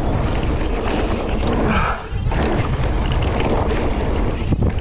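Wind buffeting a GoPro HERO9's microphone as a mountain bike runs fast down a loose, rocky dirt trail, with the bike rattling and knocking over the bumps. The noise dips briefly about two seconds in.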